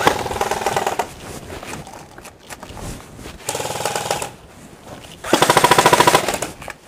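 Airsoft electric guns firing full-auto bursts of rapid, even shots. There are three bursts, the loudest and longest lasting about a second near the end.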